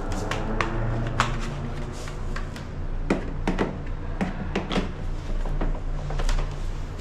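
Hard plastic vacuum-cleaner parts being handled, with a dozen or so sharp clicks and knocks at irregular intervals over a steady low hum.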